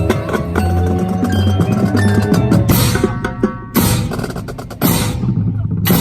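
Marching band playing a drum-heavy passage with pitched instruments underneath. In the second half come four loud crashing accents about a second apart.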